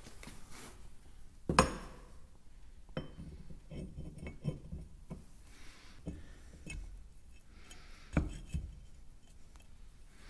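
Metal tank-clutch parts clinking and knocking as they are handled and fitted together by hand: one sharp ringing clink about a second and a half in, a run of light clicks and taps, then two knocks near the end.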